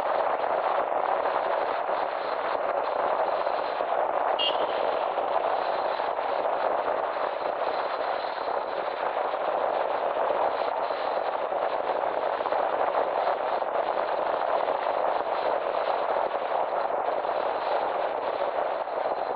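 Steady rushing road and wind noise of a car in motion, with a fine crackle running through it and a brief high chirp about four and a half seconds in.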